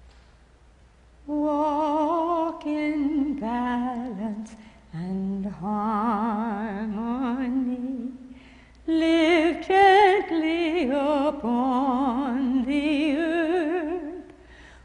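A woman singing solo without accompaniment, a slow melody in long held notes with heavy vibrato. The singing starts about a second in, with a short break about eight seconds in.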